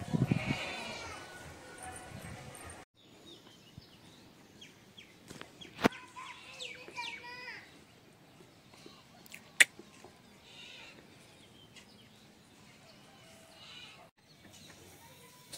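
A farm animal's loud bleat in the first second or so. After that, quiet farmyard sound of small birds chirping and soft fowl clucking, with two sharp clicks.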